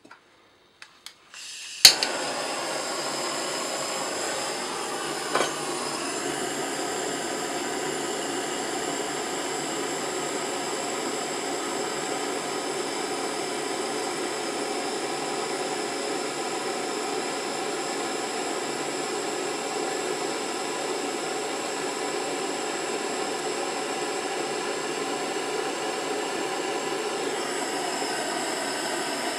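Handheld blow torch lit with a sharp click about two seconds in, then burning with a steady, even hiss.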